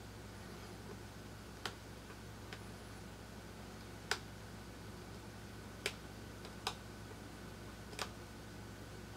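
A metal blade tool makes faint, sharp clicks as it picks at the flaky, delaminated layers of an iPhone 6 Plus logic board. There are about six clicks, irregularly spaced, over a steady low hum.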